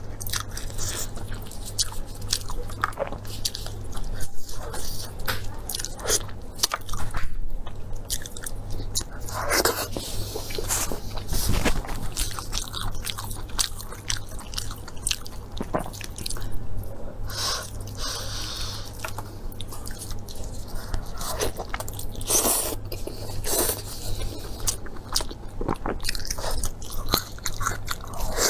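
A person eating close to the microphone, biting and chewing with many irregular crisp clicks and smacks. A steady low hum runs underneath.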